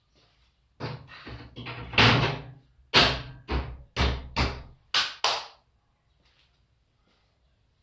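A run of knocks and clunks, about a dozen over some five seconds, the loudest two in the first half, as washing machine casing parts are handled and fitted back together.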